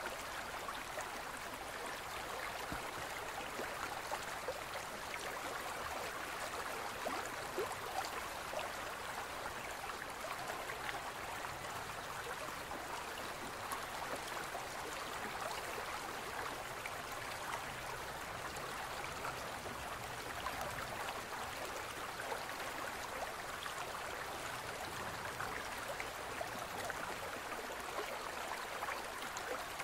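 Gentle stream running steadily over rocks, a continuous babble dotted with many small splashes.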